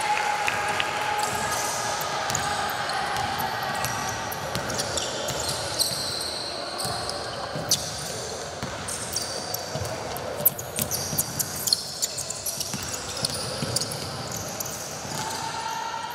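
Basketball game play on an indoor court: the ball bouncing and hitting with sharp knocks, and short high squeaks of sneakers, over a steady murmur of voices.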